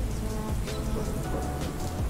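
Steady rain sound layered over quiet music with short held notes.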